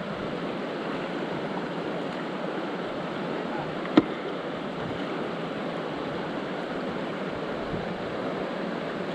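River water rushing steadily, with one sharp click about four seconds in.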